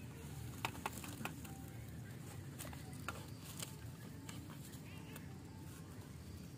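Scattered faint clicks and rustling as a small bamboo frog trap is gripped and pulled up out of the soil, over a low steady background noise.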